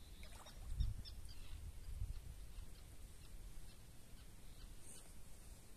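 Faint chirps of small birds over a low rumble, with a dull thump about a second in.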